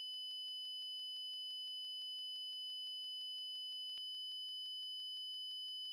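Faint, steady, high-pitched electronic alert tone with a rapid pulsing of about five beats a second. It is the background alarm tone of a mock emergency-alert warning screen.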